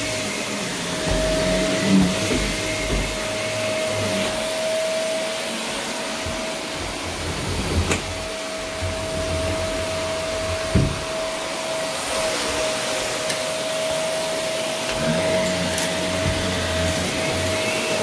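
Upright vacuum cleaner running on carpet, a steady motor whine over its airflow hiss, with a few short knocks.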